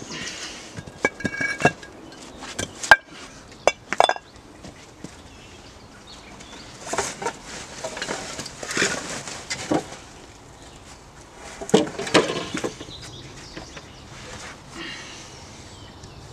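Flat stone and concrete slabs clacking and clinking against each other as they are handled and set down on a pile. There are sharp knocks in the first few seconds, and scuffing and shuffling noises in the middle.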